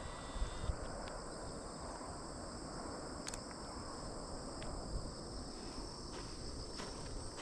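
Chorus of crickets and other insects: a steady high-pitched trilling, with a few faint clicks.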